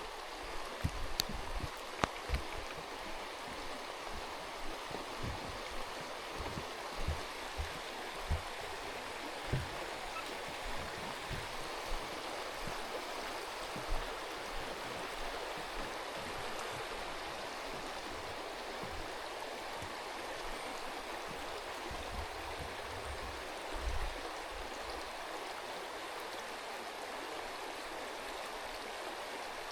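Mountain river rushing steadily, with short low thumps now and then in the first half and again about two thirds of the way in.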